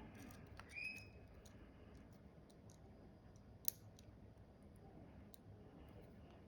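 Faint, sparse metal clicks of small lock parts and tools being handled while a pin-tumbler lock is disassembled, with one sharper click about three and a half seconds in; otherwise near silence.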